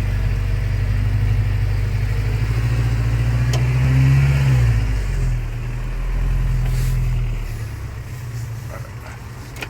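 Toyota pickup's freshly rebuilt 22RE four-cylinder engine pulling the truck off-road, revving up briefly about four seconds in and then settling, and running quieter near the end.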